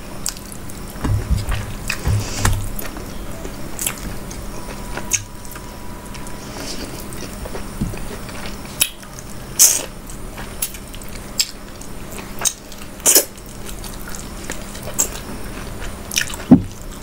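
Close-miked eating sounds: chewing and wet mouth smacks from a mouthful of rice and mutton curry eaten by hand, with scattered sharp clicks and a few low thumps near the start.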